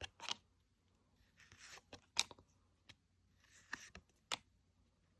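Trading cards being slid and flipped through by hand: a few faint, short swishes and clicks.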